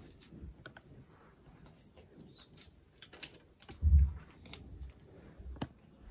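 Quiet room with scattered light clicks and handling noises, and one dull low thump about four seconds in.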